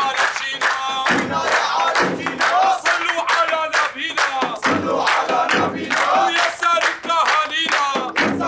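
A crowd of men chanting and shouting in unison to steady rhythmic hand-clapping, with a lead voice calling out, in the manner of a Damascene 'arada wedding procession.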